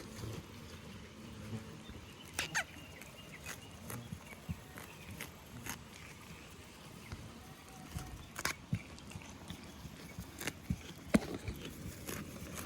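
Goats moving about: scattered short clicks and knocks, such as hooves on hard ground, with one sharp knock near the end louder than the rest.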